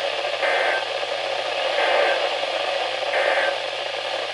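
Three short bursts of NOAA Weather Radio SAME data tones, evenly spaced, over steady static hiss from the radio reception: the Emergency Alert System end-of-message signal that closes the warning broadcast.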